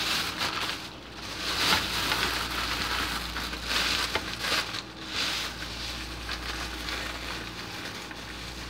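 Thin plastic bag crinkling and rustling as it is twisted and wrapped by hand, in loud bursts over the first five seconds, then softer.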